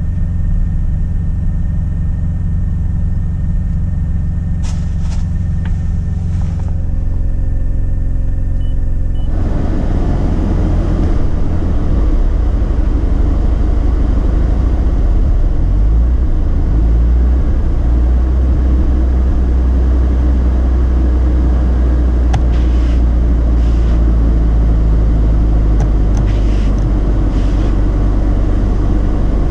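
2005 Mazda RX-8's twin-rotor Renesis rotary engine running, steady at first, then turning louder and noisier about nine seconds in. The engine has a misfire at low rpm once warm, later traced to incorrectly wired injectors.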